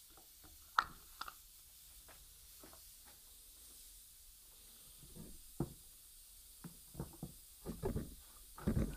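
Scattered clicks and knocks of a ribbed metal belt pulley being handled and set down on a metal bench vice by gloved hands, with one sharp click about a second in and a cluster of heavier knocks near the end.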